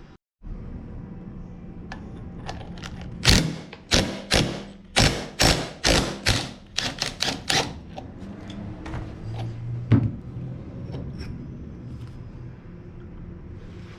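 A run of about a dozen sharp metal-on-metal strikes, like hammer blows on a tool, coming faster toward the end, then one more single strike a few seconds later.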